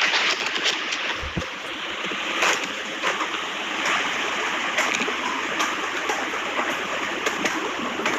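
Steady rushing, hissing noise with scattered sharp clicks and a brief low thump about a second in.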